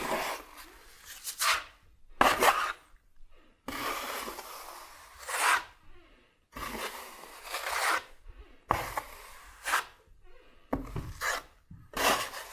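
A steel drywall trowel scraping across wet joint compound on drywall in a series of strokes, each a second or two long with short pauses between. The trowel is pressed hard to take most of the mud back off, leaving a thin skim coat.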